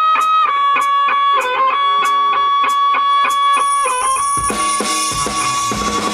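Live rock band playing, led by an electric guitar picking a melodic line of held high notes. About four seconds in, the band comes in fuller, with cymbals and bass.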